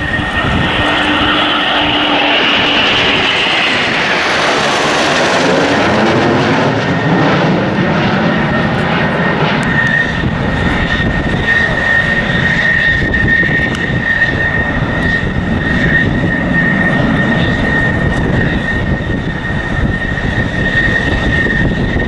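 Three Eurofighter Typhoon fighter jets, each with twin EJ200 turbofans, flying past overhead in formation. Their roar falls in pitch as they pass, a few seconds in, then settles into a lower rumble as they fly away, with a steady high whine running under it.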